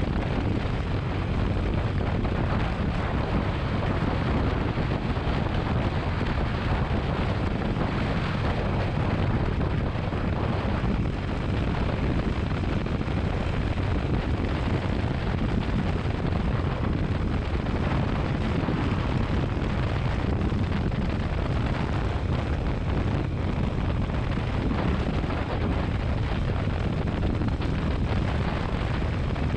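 Motorcycle riding at a steady road speed: wind rushing over the microphone mixed with engine and road noise, even and unbroken.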